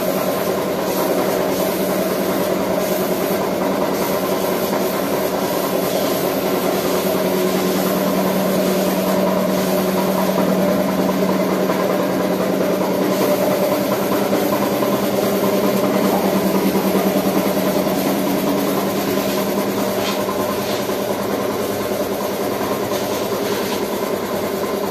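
Small tank-mounted piston air compressor running steadily, a constant hum with a hiss of air above it, supplying a paint spray gun.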